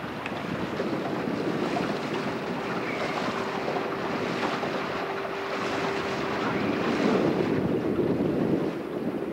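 Wind rumbling on the microphone and water rushing past a moving boat, with a faint steady hum through the middle.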